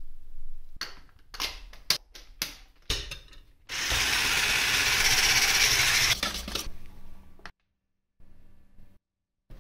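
Light clinks and taps of a spoon against a bowl, then an electric hand mixer's wire whisk beating eggs for about three seconds, starting and stopping abruptly.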